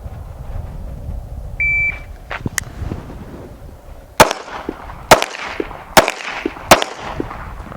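A shot timer beeps once, then a Smith & Wesson M&P 2.0 pistol fires four shots a little under a second apart, each followed by a short echo.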